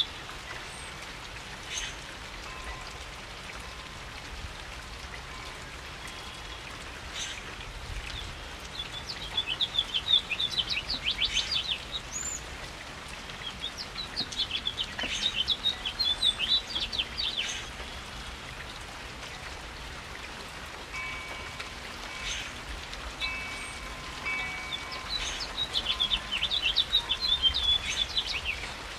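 Steady rain falling, with a songbird singing three long bursts of rapid, high chirping notes and a few faint drawn-out whistles between them.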